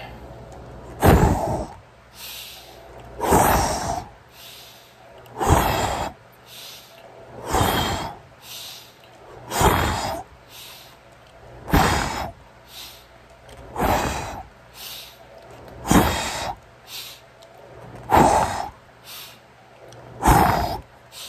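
A man breathing hard through a set of push-ups: a loud, sharp exhale about every two seconds, ten in all, with a softer breath in between each one.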